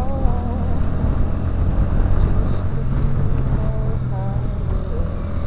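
Motorcycle engine running steadily at cruising speed, with wind rumbling over the microphone as the bike rides along.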